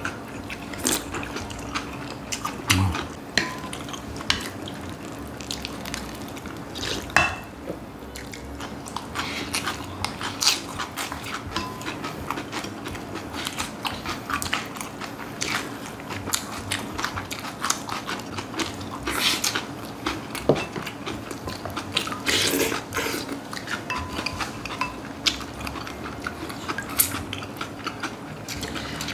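Two people eating: spoons clicking against glass bowls and plates, slurping of cold cucumber soup and chewing of crunchy raw young radish bibimbap, in many short, irregular sounds over a steady low hum.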